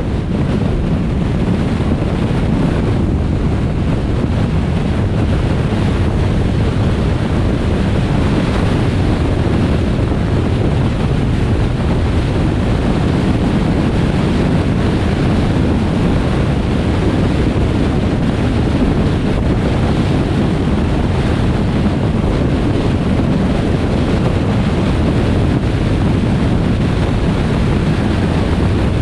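Steady road and wind noise of a car driving along a highway: a continuous low rush that does not change.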